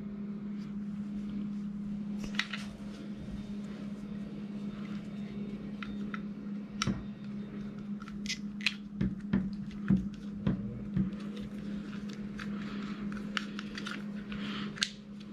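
Scattered small clicks and rustles of the smart lock's cable connector and plastic parts being handled and plugged into the inside unit, over a steady low hum.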